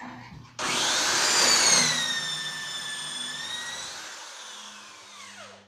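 Electric drill boring an angled hole through a pocket-hole jig into an 18 mm melamine board. The motor starts with a rising whine about half a second in, runs steadily while it slowly gets quieter, then winds down with a falling pitch near the end.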